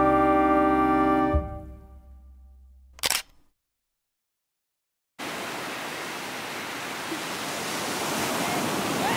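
Background music that fades out about a second and a half in, then a single short click, then about two seconds of dead silence. From about five seconds in, ocean surf breaks and washes up a sandy beach as a steady rush.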